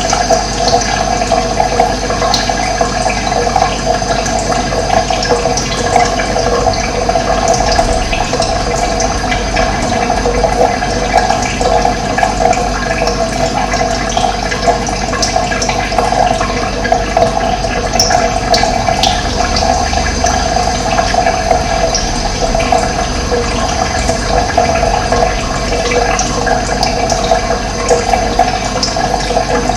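Running water flowing steadily, a continuous rushing wash with no breaks.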